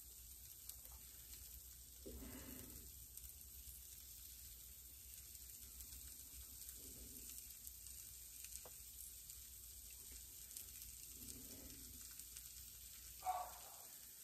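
Faint sizzling of shredded cheese cooking on the hot plates of open mini waffle irons, which are still coming up to temperature, with a few soft handling sounds as tomato strips are laid in.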